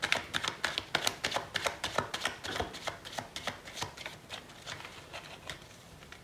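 A deck of fortune-telling cards being handled, a quick run of card clicks several a second that thins out and stops near the end.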